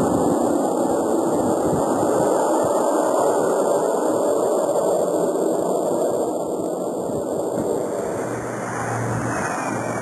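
Jet airliner's engines running on the takeoff roll, a steady broad rumble that eases a little toward the end. About eight seconds in the sound changes and a higher jet whine comes in.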